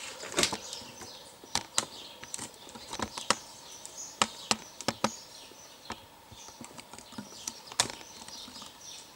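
Irregular sharp clicks and taps, a dozen or so at uneven intervals, from equipment being handled on a workbench, with faint bird chirps behind.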